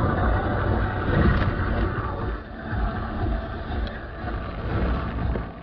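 Steady road and engine rumble of a car driving, heard from inside the cabin through a dashcam.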